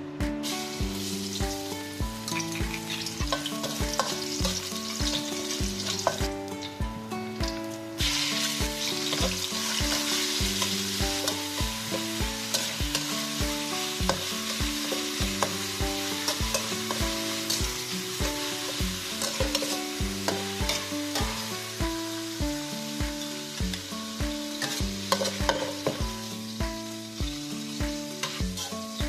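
Minced garlic and then beef slices sizzling in hot oil in a stainless steel wok as they are stir-fried with a metal spatula. The sizzle dips briefly and then grows louder about a quarter of the way in. Background music with a steady beat plays throughout.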